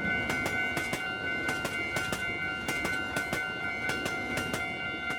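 Train passing over a track, wheels clacking rapidly over rail joints above a low rumble, cutting off suddenly near the end. Steady high tones sound underneath.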